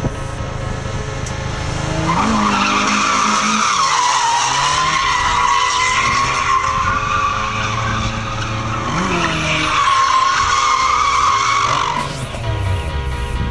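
A car's tyres squealing through a long drift, from about two seconds in until near the end. The engine revs climb as the slide starts and again partway through.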